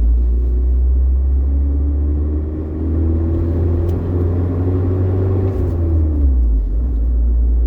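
1994 Chevrolet S10 pickup running on a test drive: a steady low engine and road rumble with a faint tone that drifts slowly up and down.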